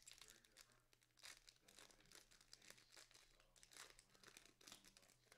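Faint crinkling and tearing of a foil trading-card pack wrapper being ripped open by hand, in many short crackles.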